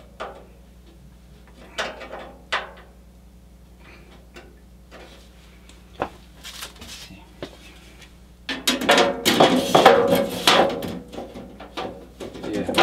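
Metal computer-case door panel and its catch being handled, with scattered small clicks and scrapes while the catch that wasn't holding is bent to grip better. About eight and a half seconds in comes a couple of seconds of dense metallic rattling and scraping.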